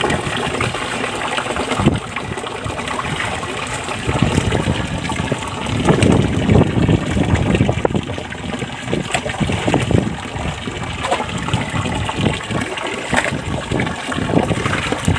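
Water rushing steadily, with louder splashes in shallow muddy water a few times as a landing net and bare feet work through it.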